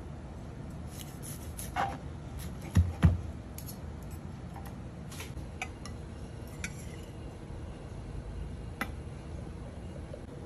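A metal knife and fork clicking and knocking against a cutting board and a ceramic plate as sliced chicken is lifted across. Two louder knocks come about three seconds in, with lighter clinks scattered through.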